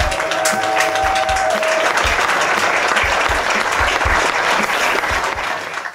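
Crowd and band applauding in a dense, steady round of clapping. A held musical tone rings over it for the first two seconds.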